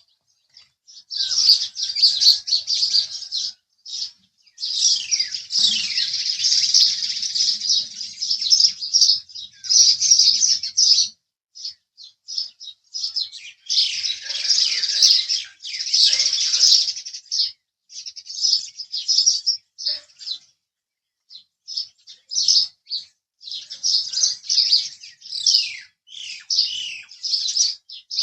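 House sparrows chirping: quick runs of sharp, high chirps in bursts of a few seconds, with short breaks between them.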